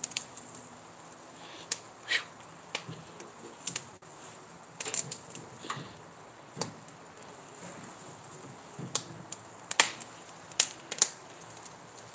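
Irregular sharp pops and crackles from butter and fat dripping into the flames of a grill cooking steaks, sausages and corn, scattered about a dozen times over a faint steady background.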